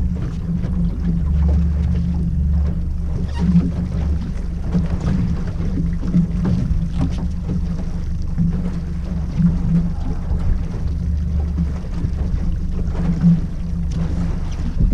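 Small boat's outboard motor running steadily at slow trolling speed, a continuous low rumble with faint knocks and water noise over it.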